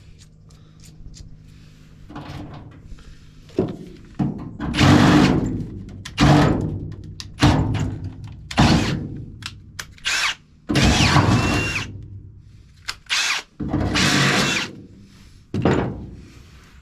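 Power drill running in about a dozen short bursts, most under a second long, some carrying a thin whine, as it drills holes through the truck bed's sheet metal.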